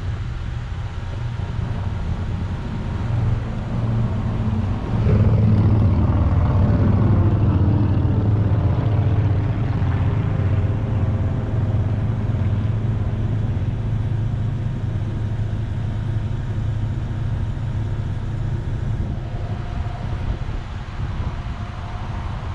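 Car engine and road noise as the car sits and moves in a drive-thru line: a steady low rumble that grows louder about five seconds in and then holds.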